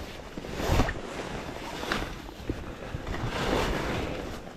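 Wind buffeting the microphone in uneven gusts, with rustling of gloves and jacket.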